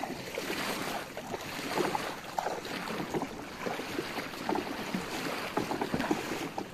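Wooden paddles stroking and splashing through seawater beside a small wooden fishing boat, with irregular splashes over a steady wash of water and some wind on the microphone.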